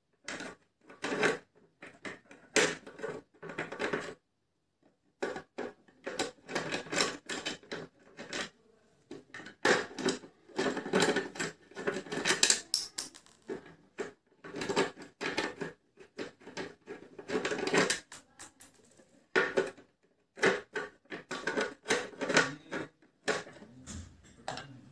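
A mixer grinder being opened up by hand: a busy run of clicks, taps and scrapes as its housing and fasteners are worked loose, coming in uneven spells with short pauses.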